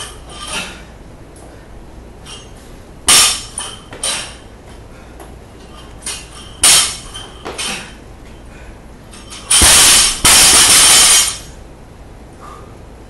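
A loaded barbell dropped onto a rubber lifting platform, its plates clanging and rattling on the bar for about a second and a half near the end. Before that come a few sharp metallic clinks of the plates shifting on the bar while it is held.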